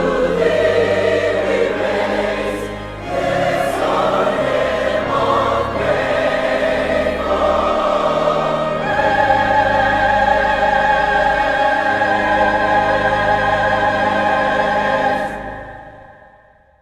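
Choir singing a hymn, ending on a long held final chord that fades out near the end.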